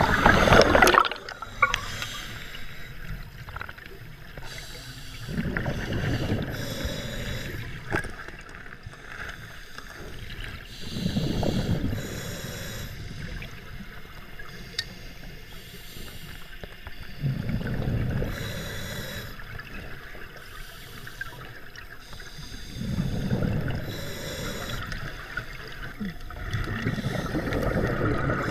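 Scuba diver breathing through a regulator underwater: a hiss on each breath in and a bubbling rush of exhaled bubbles about every six seconds. A few sharp clicks come from the chain and tools being handled.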